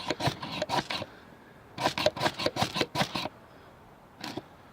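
The file of a Leatherman Super Tool 300 scraped hard down a ferro rod to throw sparks into tinder: two runs of quick scraping strokes, then a single stroke near the end.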